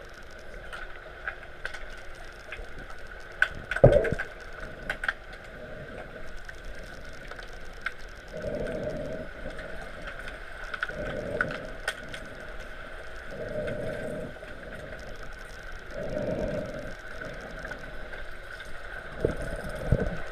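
Underwater hockey play heard from under the water in a pool: scattered sharp clicks and knocks, with one loud knock about four seconds in, over a steady high hum and a soft rush that swells every two to three seconds.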